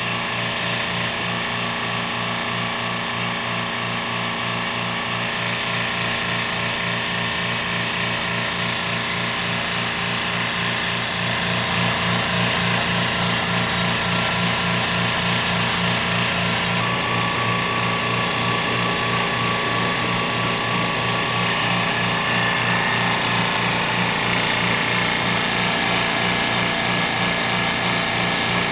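A small motor-driven machine running steadily, with a fast pulsing hum and a hiss over it. It gets a little louder about eleven seconds in.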